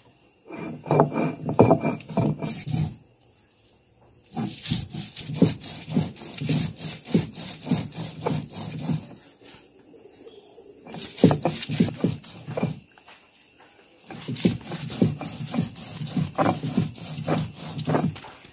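Stone roller worked back and forth over a flat grinding stone, crushing shallots, garlic and fennel seeds into a masala paste. It goes in runs of quick rasping strokes broken by a few short pauses.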